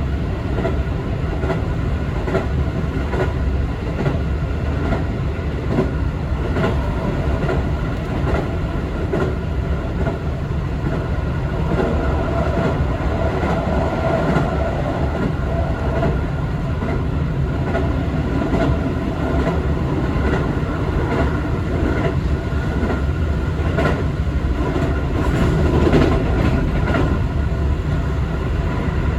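Keio Liner train (Keio 5000-series electric multiple unit) running along the line, heard from inside the passenger car: a steady rumble of wheels on rail with frequent irregular clicks.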